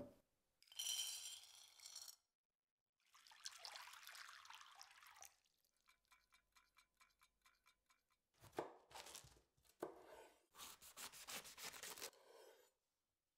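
Quiet kitchen sounds: water poured over dried white cannellini beans and dripping, then a knife cutting through a sweetheart cabbage on a wooden board in runs of quick, crisp strokes.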